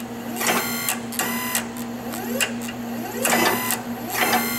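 Small servo motor and pump of a REXA electraulic actuator starting and stopping in four short whining bursts, each under half a second, as the actuator makes small set-point changes: this is the fine-positioning motor running on its own, without the large booster motor. A steady low hum runs underneath.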